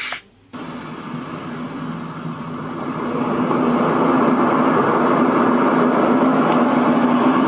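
A Douni white noise machine's speaker switching from its birdsong sound to a steady noise track with a low hum. After a brief gap the noise fades in, grows louder for about three seconds, then holds steady and pretty loud.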